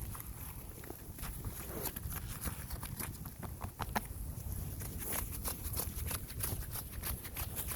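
Footsteps crunching in snow as a series of irregular crisp crunches, over a steady low rumble of wind buffeting the microphone.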